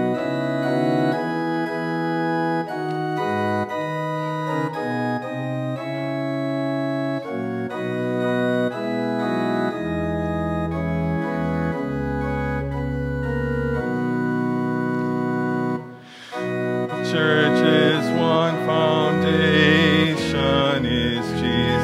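Church organ playing a hymn introduction in sustained chords, with very low bass notes in the middle. About sixteen seconds in it breaks off briefly, then the congregation starts singing the hymn with the organ.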